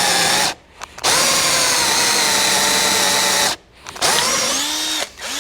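Power drill boring holes through a steel flat-bar bracket, its motor running with a steady whine, stopping briefly twice and starting again.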